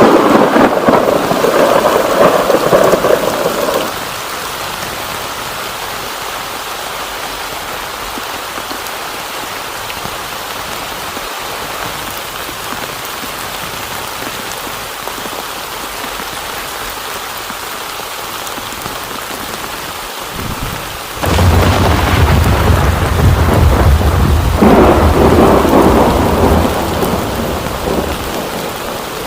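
Heavy rain falling steadily with thunder: a loud rumble at the start dies away after about four seconds, and another breaks in suddenly about three-quarters of the way through and rolls on for several seconds.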